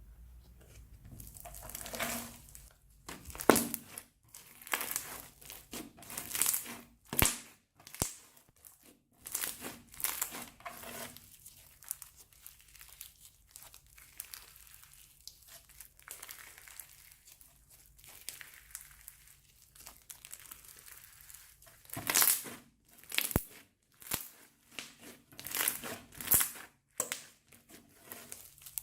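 Plastic piping bags crinkling as they are handled and squeezed, in irregular bursts, some much louder than others.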